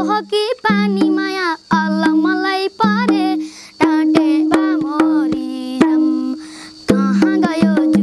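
A boy singing a Nepali folk song, accompanying himself on a madal hand drum. Frequent drum strokes run under the singing, with low ringing drum tones between the phrases.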